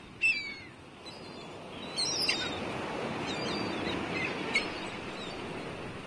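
Seabirds, likely gulls, giving several short, high, falling cries, scattered one after another over a steady rushing noise that swells a couple of seconds in.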